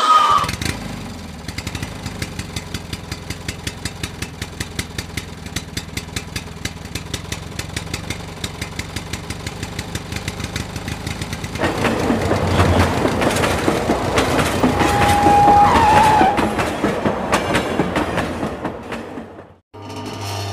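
Battery-powered toy train running on plastic track, clicking about three times a second. About halfway through it becomes a louder, busier rattle, with a short steady tone a few seconds later, and it stops suddenly near the end.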